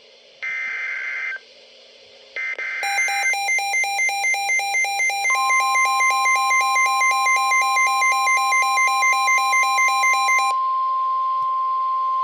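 NOAA Weather Radio alert opening: the last two bursts of the SAME digital header screech, then an electronic alarm beeps rapidly, about four times a second. About five seconds in, the steady 1050 Hz warning alarm tone joins and carries on alone after the beeping stops near the end. This is the signal of a new warning being broadcast.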